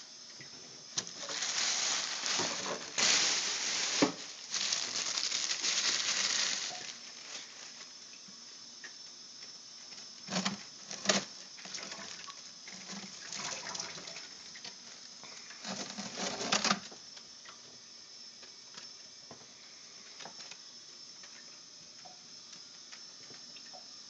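Plastic sheeting over a freezer compartment rustling for several seconds as it is handled, then a few short knocks and scrapes against the built-up ice. After that there is only a faint steady hiss.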